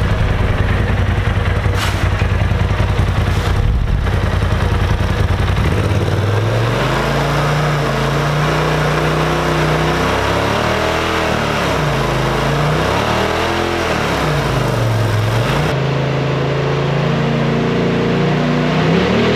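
Polaris RZR Pro XP's turbocharged twin-cylinder engine running on the dyno. It rumbles at a low idle, steps up to a steadier, higher speed about six seconds in, is revved up and back down twice, then holds and starts to rise again near the end.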